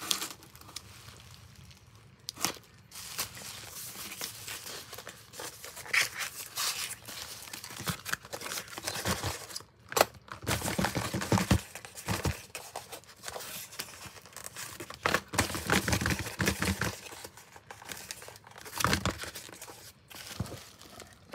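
A cardboard shipping box being cut open and unpacked by hand: scissors cutting packing tape at the start, then cardboard flaps scraping and rustling and plastic packaging crinkling in irregular bursts with sharp clicks.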